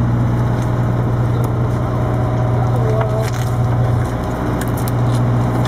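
A fishing boat's engine running with a steady low drone, with a few faint clicks and knocks over it.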